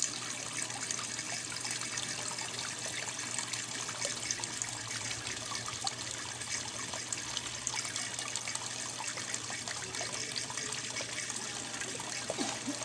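Water trickling and splashing steadily into a small fish pond from a hose outlet, with a faint low hum underneath.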